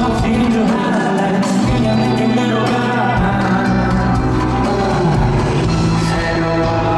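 Live pop music from a band over a large sound system, with singing.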